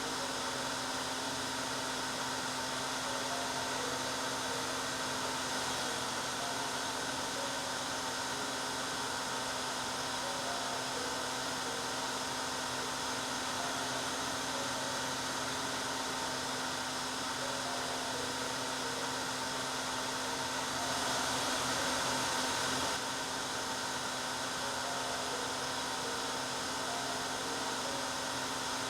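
Hair dryer running steadily: an even rush of air with a steady motor hum under it, briefly a little louder about 21 seconds in.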